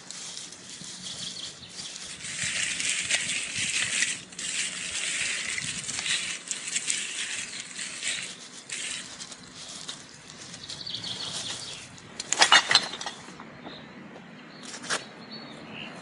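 Close, uneven rustling and crackling, with a louder burst of rustling or clatter about twelve seconds in and a short one near the end.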